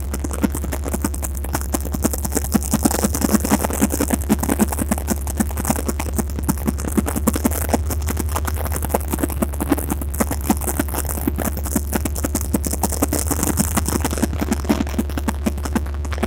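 Airboat engine and rear air propeller running steadily under way, a loud constant drone with a rapid fluttering beat.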